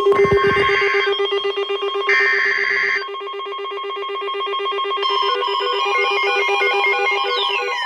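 Emergency alert signal: a loud, rapidly pulsing, ring-like alarm tone. Two roughly one-second bursts of EAS digital header data buzz over it in the first three seconds. About five seconds in the tones turn to stepping beeps, and a falling pitch sweep starts near the end.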